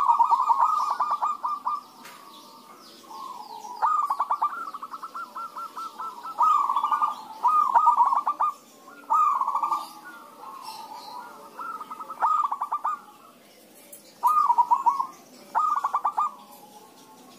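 Zebra doves (perkutut) singing and answering one another: repeated phrases of rapid, stuttering coos, a new phrase every second or two with short pauses between. Faint high chirps sound behind them.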